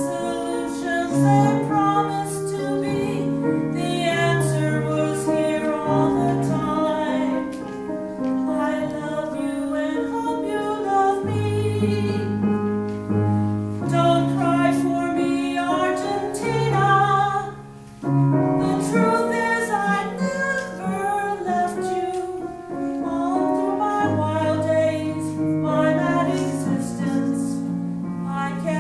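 Music: a woman singing, with piano accompaniment.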